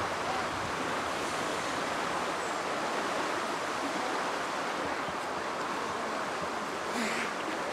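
Steady outdoor background noise: an even rush with no distinct events, and a few brief sharper sounds near the end.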